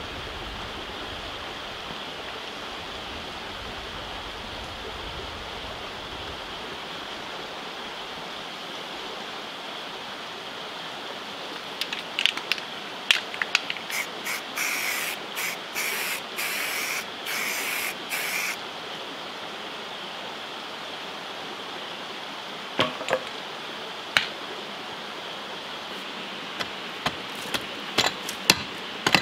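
A steady outdoor hiss, then about twelve seconds in a run of quick rasping strokes from a hand tool worked on a wooden form board, lasting some six seconds. Near the end a long-handled digging tool strikes into rocky soil several times, each strike a sharp knock.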